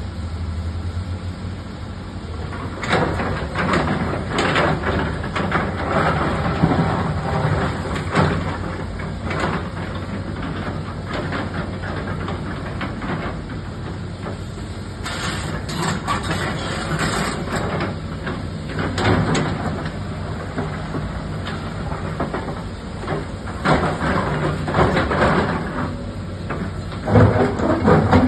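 Diesel excavator engine running steadily, with repeated bouts of clanking and scraping as the machine works.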